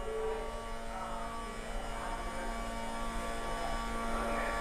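Electric recline actuator motor of a Magic Mobility Frontier V4 power chair, humming steadily as it drives the backrest back, slowly growing louder.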